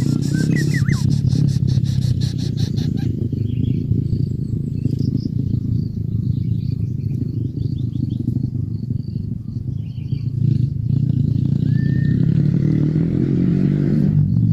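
A steady low rumble like a nearby engine, with faint high bird chirps over it and a short whistled call near the start and again about twelve seconds in.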